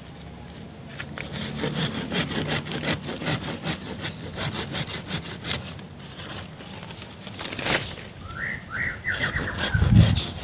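Leafy waru (sea hibiscus) bonsai branches rustling and crackling as they are gripped and pruned off, in a dense run of rapid snaps. A short run of chicken clucks follows near the end, then a low thump.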